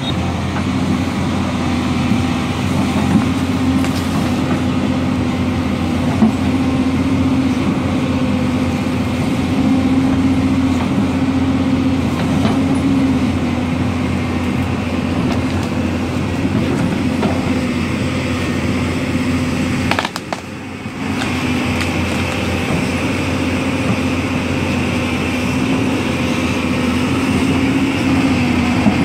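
Hyundai crawler excavator's diesel engine running steadily under load as the machine digs and pushes at a tree, with a few short knocks. The sound drops away for about a second roughly two-thirds of the way through.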